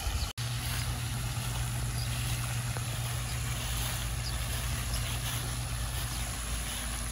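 A steady low hum over a low rumble, with all sound cutting out for an instant just after the start.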